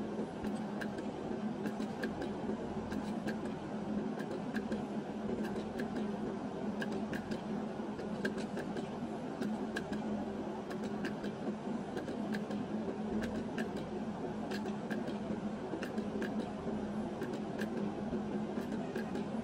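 Video slot machine being played over and over: a steady hum with a long run of short, evenly spaced ticks as the reels spin and stop.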